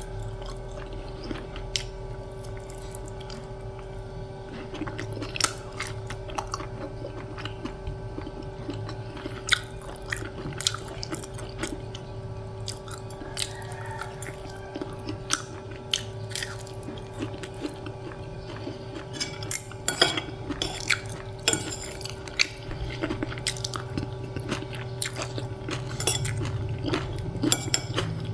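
A person eating: chewing, with a spoon and fork clicking and clinking against a plate now and then, more often in the second half.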